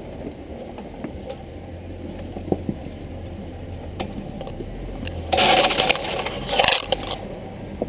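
Off-road vehicle's engine running low and steady while crawling over rock, with scattered knocks and a loud grinding crunch from about five to seven seconds in.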